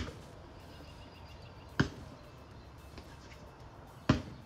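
Basketball bouncing on a concrete driveway: two single thumps, one a little under two seconds in and another near the end.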